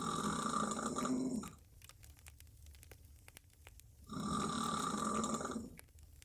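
A woman snoring loudly on her back with her mouth wide open: two snores about a second and a half long each, about four seconds apart.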